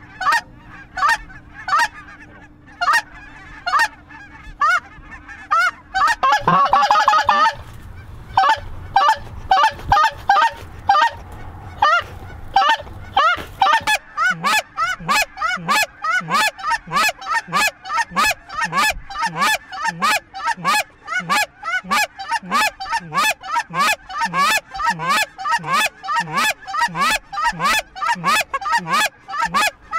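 Goose calls blown by hunters in a constant run of rapid, evenly spaced honks and clucks to work a large flock of Canada geese, with the calling briefly denser and louder about six seconds in.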